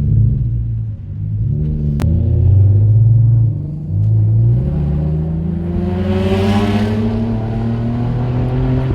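Toyota Crown's engine and exhaust under hard acceleration through the gears. The revs dip at a shift about a second in and again near four seconds, then climb steadily for several seconds.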